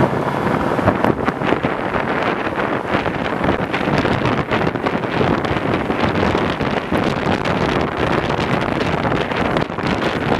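Wind buffeting the microphone held out of the window of a moving vintage rail car, over the car's steady running rumble and rattle.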